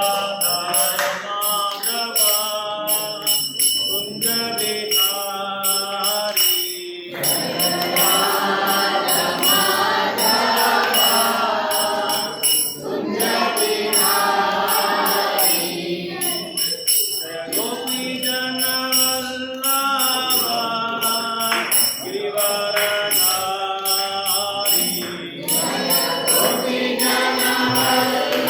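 Several voices singing a devotional chant together in repeated phrases, over a steady metallic jingling beat.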